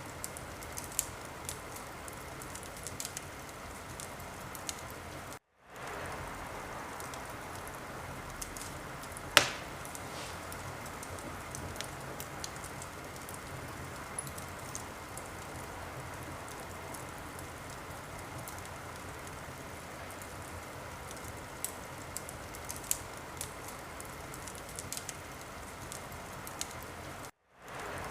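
Wood fire in a fireplace crackling over a steady hiss, with scattered small pops and one loud, sharp pop about nine seconds in. The sound cuts out completely for a split second twice, near the start and near the end.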